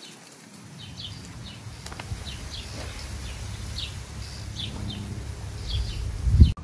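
Small birds chirping: many short, high, downward-sliding chirps repeating irregularly, over a steady low rumble. A loud low thump comes just before the end.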